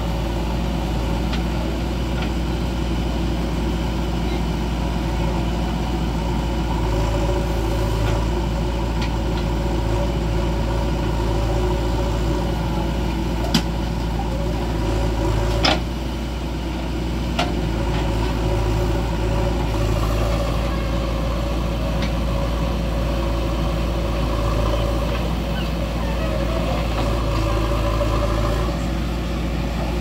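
JCB 3DX backhoe loader's diesel engine running steadily while it digs and loads soil, with a few sharp knocks, the loudest about halfway through.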